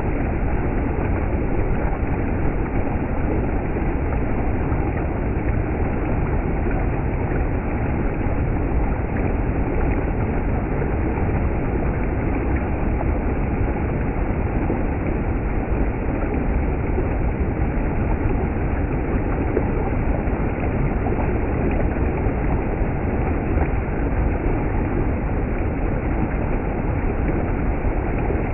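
Steady, loud rushing of fast-flowing stream water.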